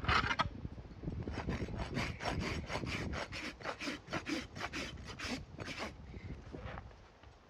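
Farrier's rasp filing a horse's hoof wall in quick back-and-forth strokes, about four a second, tailing off near the end.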